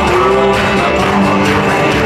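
Loud dance music with a steady beat, playing without a break.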